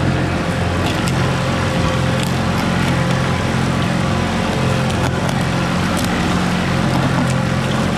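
An engine running steadily, a low even drone with a few faint clicks over it.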